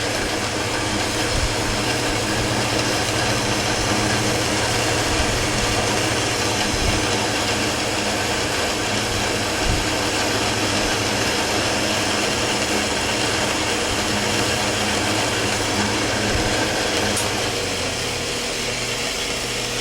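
Metal lathe taking a deep cut on scrap metal: the tool cutting with a steady hiss over the motor's hum. A steady hiss like this is the sign of a cut that is going well.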